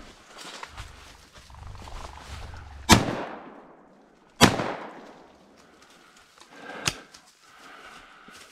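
Two shotgun shots about a second and a half apart, each ringing out and fading, with brush rustling before them. A fainter sharp snap follows about two seconds later.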